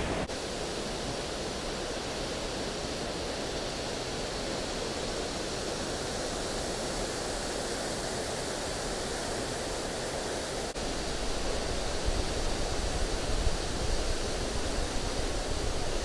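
Large waterfall with a heavy flow: a steady rush of falling water. After a short break about two-thirds of the way through, it is louder and more uneven in the low end.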